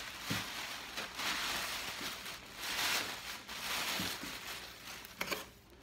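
White packing stuffing crumpling and rustling in repeated bursts as it is pulled out of a leather tote, with a sharp knock near the end.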